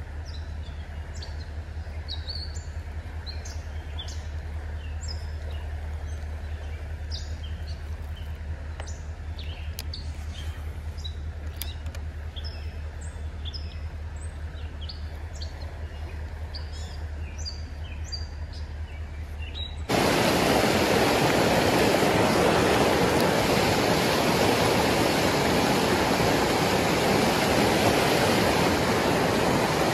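Small songbirds chirping repeatedly over faint creek water and a low steady hum. About twenty seconds in, this gives way suddenly to the loud, steady rush of water pouring over a rocky creek rapid.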